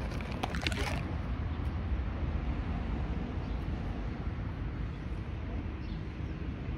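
Steady low outdoor background rumble, with a few short clicks in the first second.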